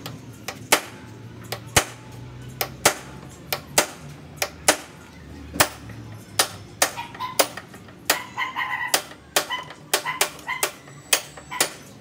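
Hand hammer striking metal at the front frame of an electric scooter: sharp, irregular blows, about one or two a second at first and coming faster in the second half.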